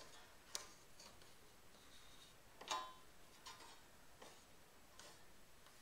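Near silence with a few faint clicks and taps as a taped bait bar is pressed into place against a boat's rod locker; the clearest tap comes about two and a half seconds in.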